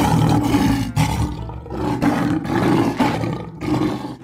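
Male lion roaring: a run of deep, rough roars and grunts, one about every second.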